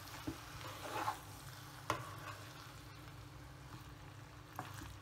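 A spatula stirring and scraping a thick mix of vegetables, coconut and curd in a nonstick pan, with a few sharp scrapes about a third of a second, one second and two seconds in, then softer stirring.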